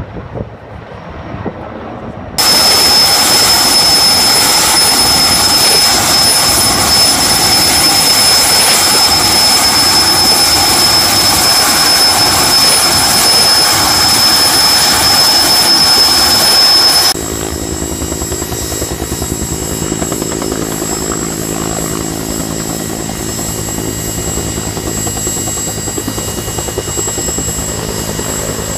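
Firefighting helicopter's turbine engines running close by: a loud steady rush with a high-pitched whine that starts suddenly a couple of seconds in. About 17 seconds in it cuts abruptly to a quieter helicopter sound: a steady low hum with a fast, even rotor pulsing.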